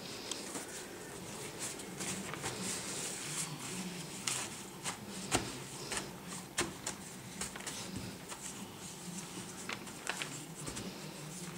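Hands kneading soft dough in a large metal pan: quiet, irregular pats and handling noises, with scattered light clicks and taps.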